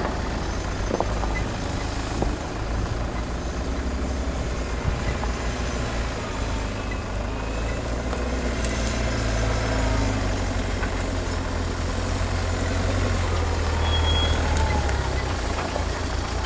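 Four-wheel-drive SUV's engine running at low revs as it crawls down a steep dirt trail: a steady low rumble that swells a little twice in the second half.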